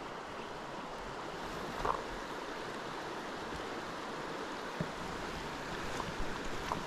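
Mountain stream water rushing steadily, with a few short ticks, one about two seconds in and several near the end.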